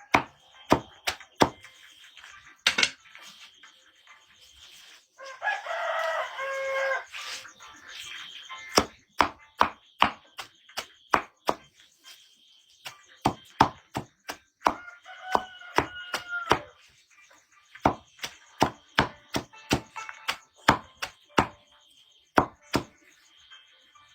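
Firewood being chopped: runs of sharp chops, several a second, with short pauses. A rooster crows twice, the first time about five seconds in and again around fifteen seconds.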